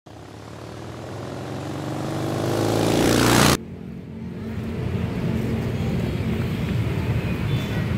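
An intro sound effect that swells steadily louder for about three and a half seconds and cuts off suddenly. It is followed by a steady low rumble of outdoor background noise.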